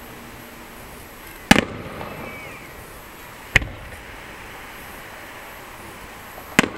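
Aerial firework shells exploding: three sharp bangs, each with a short echo, the first the loudest, about two and three seconds apart.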